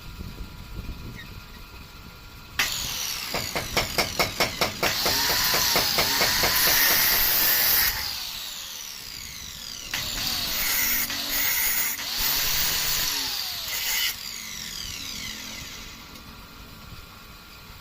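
Handheld circular saw converted into a bench metal cut-off saw: the motor starts with a quick series of pulses, runs at full speed, and winds down with a falling whine, then runs again and winds down a second time.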